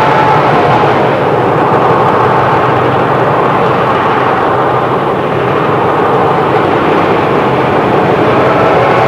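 Train sound effect: a loud, steady rumble and hiss of a train on the move, dipping slightly about halfway through.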